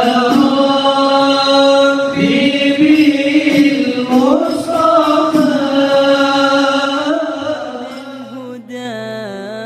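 Chanted singing in long held notes that slide between pitches. It grows quieter about eight seconds in and gives way to a softer, wavering melody.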